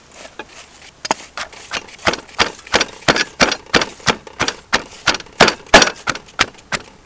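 Wooden pestle pounding sliced shallots and garlic in a wooden mortar: a few scattered knocks, then a steady beat of about three strikes a second from about two seconds in.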